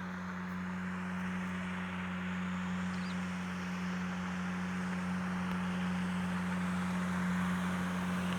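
A motor hums steadily at an even pitch, growing gradually louder, with a bird chirping faintly once.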